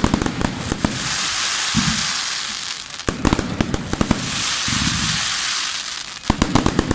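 Fireworks display: a sharp bang at the start, then shells bursting into two long crackling showers, with quick strings of pops about three seconds in and near the end.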